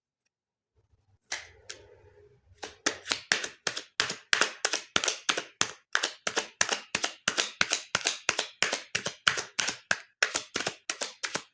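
Deck of tarot cards being shuffled by hand, the cards slapping together in a quick even rhythm of about four to five a second.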